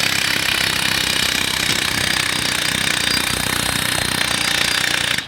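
A 20-volt half-inch cordless drill on its low setting cranking an ice castle's frame winch through a winch driver bit, running steadily under load. It cuts off suddenly near the end.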